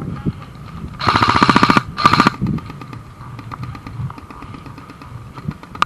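Airsoft electric gun firing two short full-auto bursts, one about a second in and another just after two seconds, each a fast, even rattle of shots. Fainter scattered shots follow.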